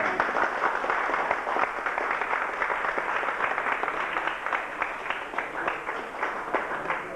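Audience applauding: many hands clapping in a dense patter that thins and dies away near the end.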